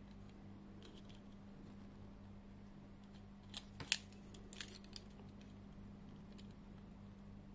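A few small clicks and taps of metal and plastic as the NT C-1500P circle cutter's blade arm is slid to set the cutting radius, clustered around the middle, over a steady low hum.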